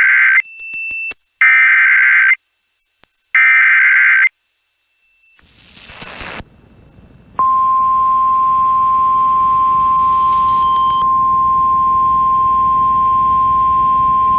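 Emergency Alert System header: three bursts of digital data tones, each about a second long and about two seconds apart. After a brief swell of noise, a single steady attention tone starts about seven seconds in and holds.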